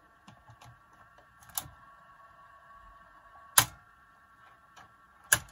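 Sanyo M-W1L twin cassette deck running on its first test after new belts, with a faint steady whine, and sharp clicks from its control keys, the loudest about three and a half seconds in and another just before the end.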